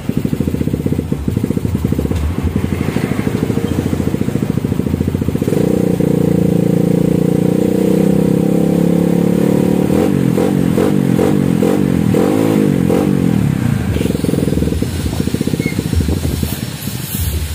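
Suzuki Satria FU's 150 cc single-cylinder four-stroke engine revving through its stock muffler, hollowed out to a racing sound. It runs low at first, holds a higher rev from about five seconds in, then blips up and down several times before settling back low near the end.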